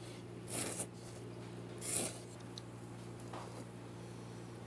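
Someone slurping soup noodles: three short slurps about a second and a half apart, over a low steady hum.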